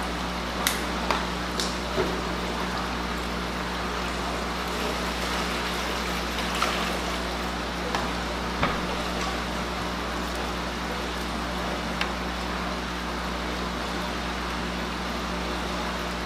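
Steady aquarium water noise from an air-driven sponge filter, bubbles rising and splashing at the surface, over a low steady hum of pumps. A few light clicks and knocks come through, clustered in the first two seconds and again near the middle.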